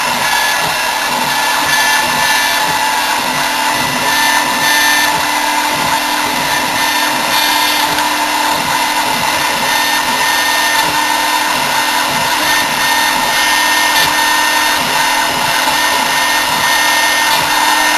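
Modelmaster CNC mill spindle running steadily at high speed, its small bit cutting into a wax block that is kept wet with a water drip to stop the bit binding.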